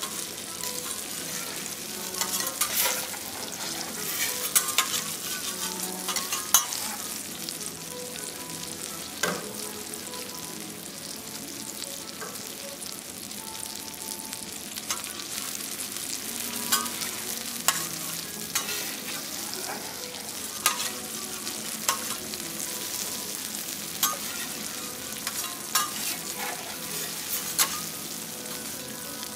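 Food sizzling on a hot teppanyaki iron griddle, a steady hiss, with frequent sharp clicks and scrapes of metal spatulas working on the plate.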